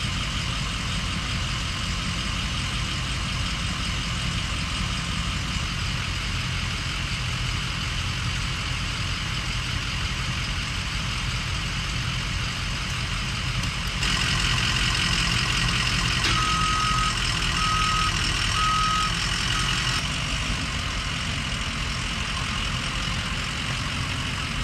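Emergency vehicles idling: a steady low engine rumble. About two-thirds of the way through, a reversing alarm beeps four times, evenly spaced.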